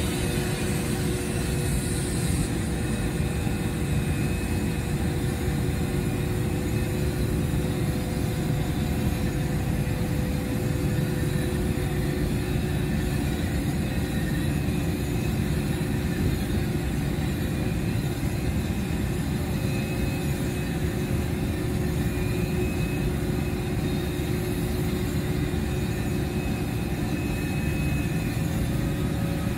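Steady, unbroken drone of a running engine, with a low rumble and a constant hum.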